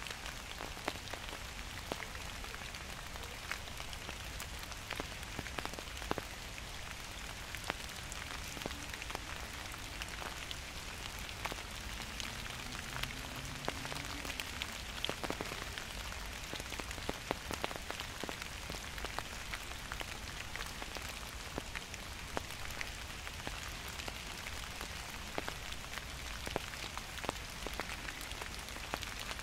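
Gentle autumn rain falling steadily, with many separate drops striking close by as sharp little ticks over the even hiss of the rainfall.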